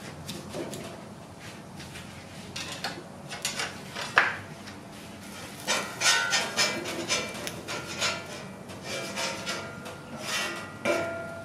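A metal spatula scraping a hot, oiled flat-top griddle in short, irregular strokes to clear burger residue. It starts with quieter wiping of the oil and gets busier and louder about halfway through.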